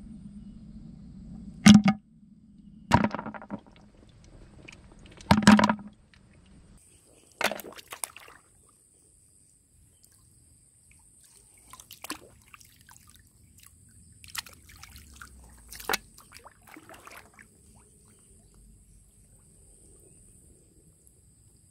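Hands sloshing and splashing in shallow muddy water while feeling through the mud for freshwater clams, in short irregular bursts. Three sharp hits come in the first six seconds, before the sloshing.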